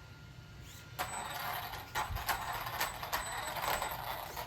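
Traxxas Raptor R RC truck being driven on a 2S battery with a freshly replaced pinion gear: electric motor and gear drive running in uneven throttle pulses, with a thin high whine and tyre noise. Quieter at first, picking up about a second in. The drivetrain sounds alright.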